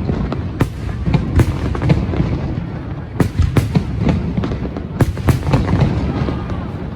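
Aerial fireworks display going off: many sharp cracks, often several a second in quick clusters, over a continuous low booming from shells bursting.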